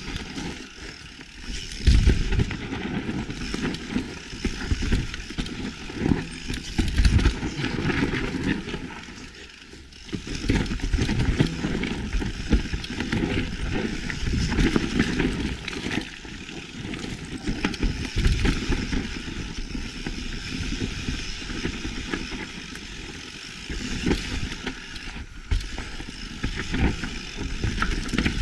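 Mountain bike riding down a rough, technical dirt trail: tyres rolling over rocks and roots and the bike rattling, with sharp knocks from impacts, the strongest about two seconds in. The noise drops off briefly about ten seconds in.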